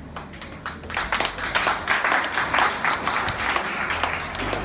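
Audience applauding: a few scattered claps at first, then full, dense clapping from about a second in, thinning out near the end.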